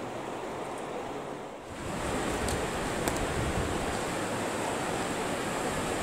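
Steady rush of river water. About two seconds in it turns abruptly louder and fuller as rapids with white water take over.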